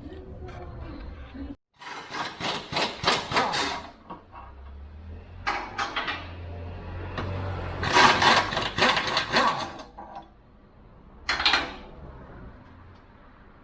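Hand tools working on a car's suspension, heard as four bursts of rapid clicks and knocks.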